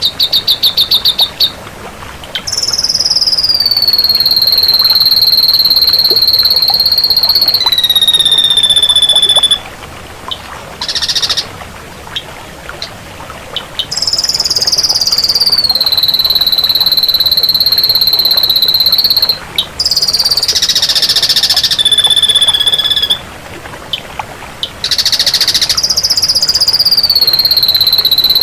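Ashy drongo singing: several long, high whistles that slide down and then hold steady for a few seconds each. A fast run of clicking notes opens the song, and short harsh rasping notes come between the whistles.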